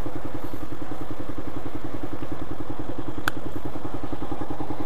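Yamaha Mio MXi 125 scooter's single-cylinder four-stroke engine idling with an even, fast pulse, and a single sharp click about three seconds in.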